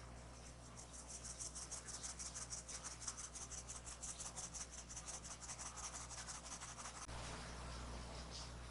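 Quick, even scraping strokes of a utensil through dry almond-flour mixture in a bowl, about five a second, stopping about seven seconds in.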